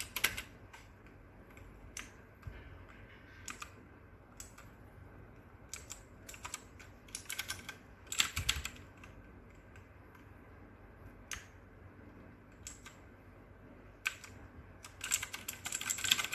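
Mechanical gaming keyboard (DareU EK87 V2) keys being pressed: scattered single clicky keystrokes, with short runs of quicker typing about halfway through and near the end.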